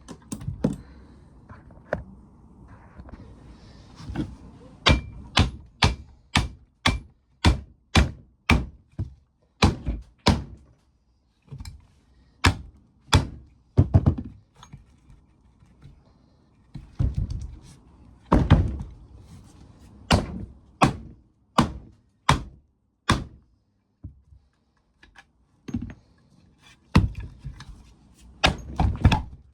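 A long series of dull, solid knocks at about one to two a second, with a couple of short pauses, from blows struck on the motor during its teardown.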